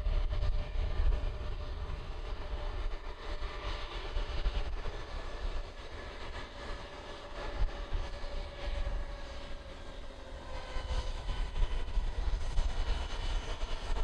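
Bombardier Global 7500's twin GE Passport turbofans running at taxi power as the jet rolls along the runway: a steady jet whine with a low rumble underneath, one tone dipping slightly a little past the middle.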